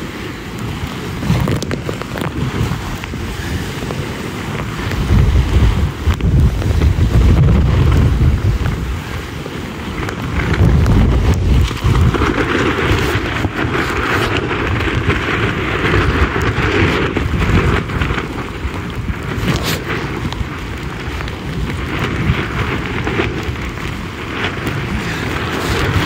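Strong gusty wind buffeting the microphone with a heavy low rumble as a Sunfish sailboat sails fast. Water rushes and splashes along the hull in a loud hiss about halfway through.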